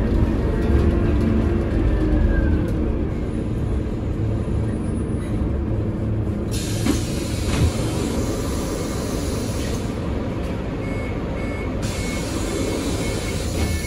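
Inside a Scania CN280UB city bus under way: the Scania OC09 compressed-natural-gas engine and its drivetrain give a steady low rumble, with a whine gliding in pitch over the first few seconds. A steady hiss comes in about halfway, drops out briefly, then returns, and a short beep repeats several times near the end.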